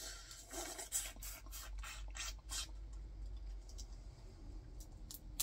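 Boiled crawfish being eaten close to the microphone: the shells crackle and snap between teeth and fingers, with chewing. A dense run of short crackly clicks fills the first three seconds, then thins out.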